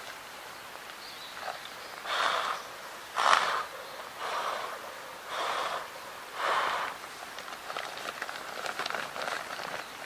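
Breaths blown by mouth into the valve of an inflatable sleeping pad: five puffs about a second apart, followed by faint rustling of the pad.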